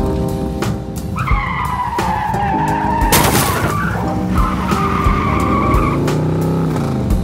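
Background music with a steady beat, overlaid with a cartoon skidding sound effect. A squealing tone slides down and back up, a short noisy burst comes about three seconds in, then a second, steadier squeal follows.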